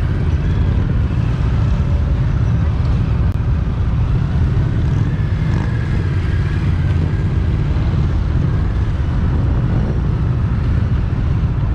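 Cruiser motorcycle engine running at low speed as it is ridden slowly through tight turns, heard under a heavy, steady low rumble.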